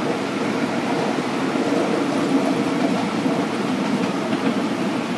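Ride-on 7¼-inch gauge model SD40-2 diesel locomotive running steadily along the track: an even hum from its drive mixed with the rumble of its wheels on the rails.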